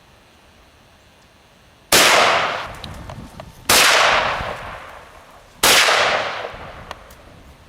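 Three rifle shots about two seconds apart, each with a long echo that trails off.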